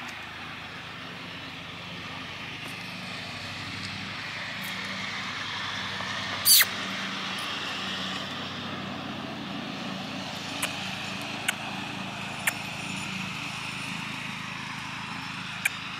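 Steady outdoor background noise with a faint low hum, like distant traffic. About six and a half seconds in comes one short, sharp, high sound that drops steeply in pitch, and a few faint sharp clicks follow later.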